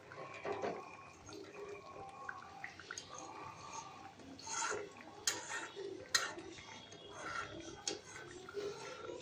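Katla fish curry in milk gravy bubbling gently in a steel pan while a spatula stirs it, with a few sharp taps against the pan.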